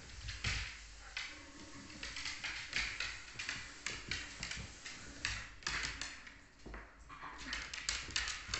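Dog claws clicking and scrabbling on a hardwood floor as an adult dog and a puppy scamper about in play: quick, irregular taps throughout.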